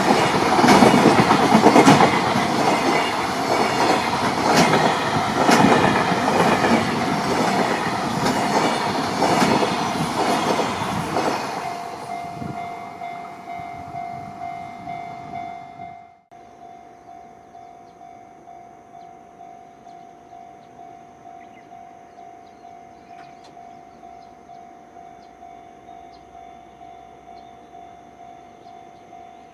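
A JR Freight train of wagons passing close by, its wheels clattering over the rail joints in a quick regular rhythm, then dying away after about twelve seconds. After a sudden cut, a level-crossing warning bell rings steadily at a little more than one stroke a second.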